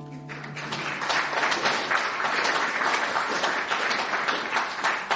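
Audience applauding at the end of a folk tune, the last held note dying away under the first clapping. The applause builds during the first second, holds, and begins to fade near the end.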